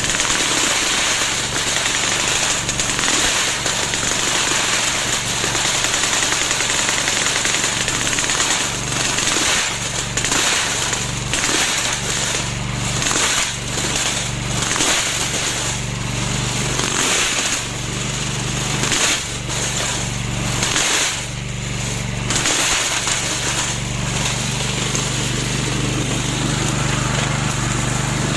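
Homemade remote-controlled lawn mower running steadily, its sound dipping briefly and irregularly many times through the middle.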